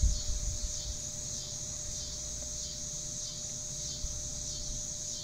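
Steady high-pitched chirring of insects throughout, with a few low bumps and knocks in the first second.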